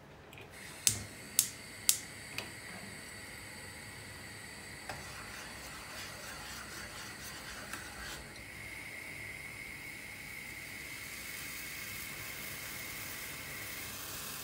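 Gas stove burner's igniter clicking four times, about two a second, then the burner alight and hissing steadily under a Turkish coffee pot (cezve). Light spoon taps and scraping in the pot from about five to eight seconds in as the coffee is stirred.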